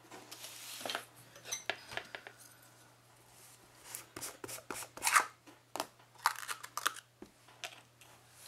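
Irregular clicks, taps and short scrapes of craft tools handled on a tabletop as a plastic jar of texture paste is opened and a palette knife picked up, busiest and loudest about five seconds in.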